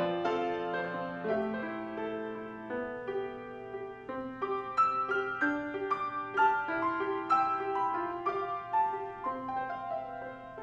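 Grand piano played solo: a classical piece of single notes and chords struck several times a second, each ringing on under the next.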